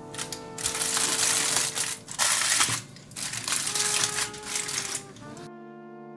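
Aluminium foil crinkling in several bursts as it is handled and folded around a pan, over background music. Near the end the crinkling stops and only the music, with brass, is left.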